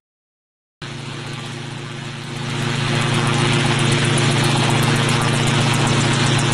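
A small homemade helicopter running on the ground with its rotor turning: a steady engine drone that starts just under a second in and grows louder about two seconds later.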